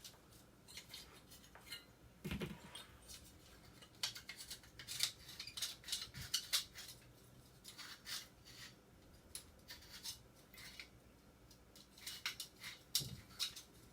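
Thin aluminum cooling fins of a microwave magnetron being bent and pried off by hand: scattered light metallic clinks, scrapes and rattles, with a couple of dull knocks.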